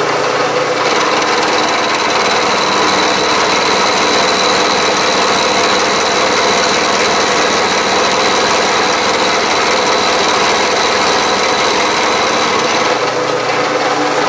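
Bridgeport vertical milling machine running with a 3/4-inch end mill cutting a notch into a metal block: steady motor and cutting noise, with a high steady whine from about a second in until near the end.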